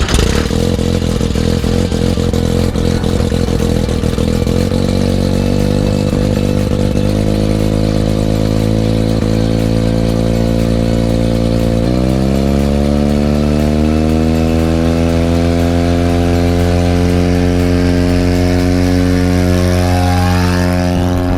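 Mustang II light aircraft's Mazda RX-7 rotary turbo engine running loudly. Its pitch steps up a few times and then climbs steadily over the second half as the engine speeds up.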